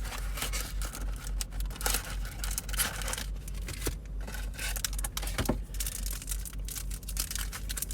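Plastic and foil packaging of a baseball card box being torn open and crinkled by hand, in a run of short, irregular rustles.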